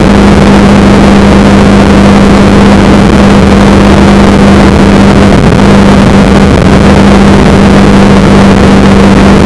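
Motorcycle cruising at steady highway speed, picked up by a dashcam's own microphone: a steady engine drone under heavy rushing wind noise. The level is very loud throughout, with the engine note wavering briefly in the middle.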